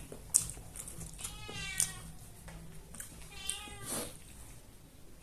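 A cat meowing twice, each call rising and falling in pitch, with a few short sharp clicks in between.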